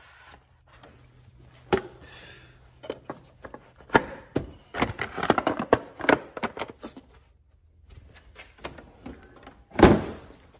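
Plastic clicks and knocks from handling the mower engine's air-filter housing and cover, with a busy clatter in the middle and a louder thump near the end.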